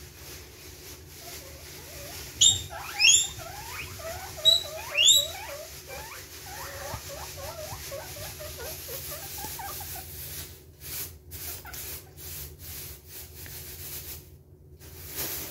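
Guinea pigs squealing (wheeking): four loud, rising squeals in the first five seconds or so, followed by a string of quieter short squeaks. A few sharp clicks follow near the end.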